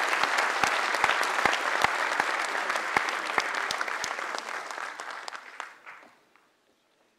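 Audience applauding, steady clapping that thins out and fades away about six seconds in.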